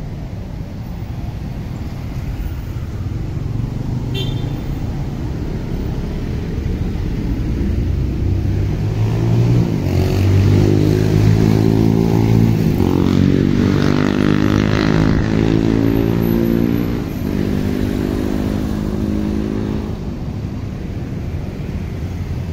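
Road traffic on a city street, with one motor vehicle's engine growing louder as it passes close, loudest about halfway through, its pitch shifting in steps, then fading back into the general traffic rumble.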